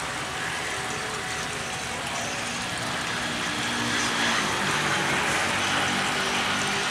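JR 205 series electric commuter train approaching along the track, a steady rumble of wheels and motors that grows a little louder from about four seconds in.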